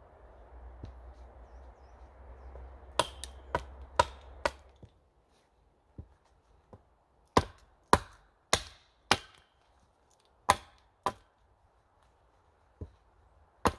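Hatchet chopping into an upright wooden pole: around fifteen sharp chops at an uneven pace, some in quick pairs, as the pole is trimmed and its bark cut away.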